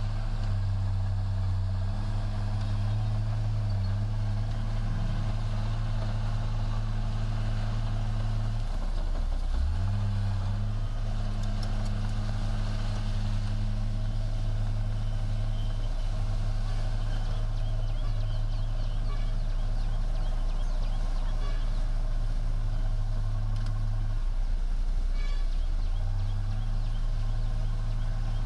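Heavy diesel engine of an earthmoving machine running steadily under load. Its pitch dips and comes back up about a third of the way in, and its note changes again near the end.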